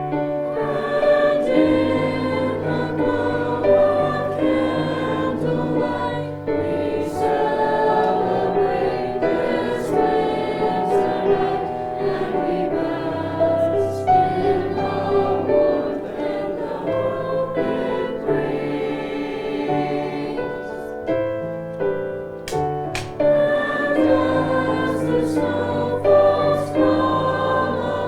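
High school choir singing a Christmas song in parts, over sustained low accompaniment notes.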